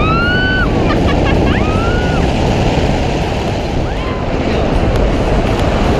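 Wind rushing over the camera microphone during a tandem parachute descent, as a steady dense roar. In the first two seconds there are a few short, high-pitched rising-and-falling cries.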